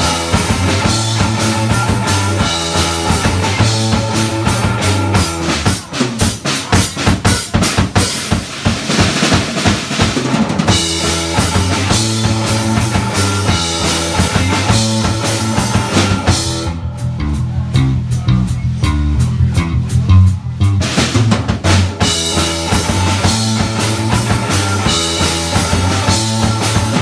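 Live rock band playing an instrumental passage on electric guitar, bass guitar and drum kit, with the drums prominent. For a few seconds about two-thirds of the way through, the upper sound drops away, leaving the low bass and drum hits before the full band returns.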